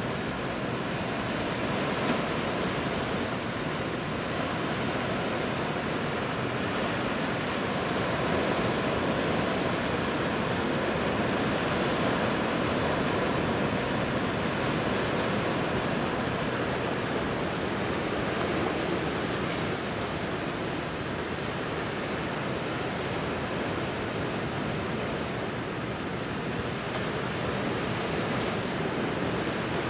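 Steady wash of sea waves, an even rushing noise that swells and eases slightly in level.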